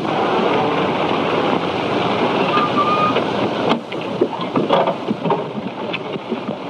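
Early-1930s touring car running along a road: a dense, steady motor and road noise, thickened by the hiss of a worn film soundtrack. It cuts off sharply about halfway through, and a few knocks follow as the car stands and its passengers climb out.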